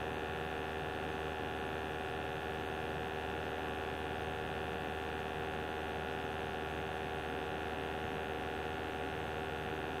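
Steady electric hum of a small running motor, several steady tones held without change.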